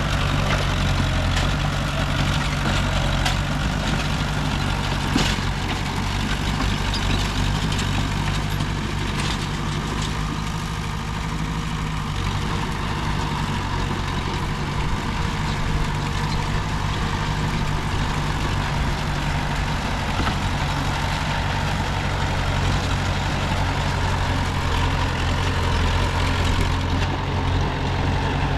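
Heavy diesel earthmoving machinery running steadily at low, even revs, with a single sharp knock about five seconds in.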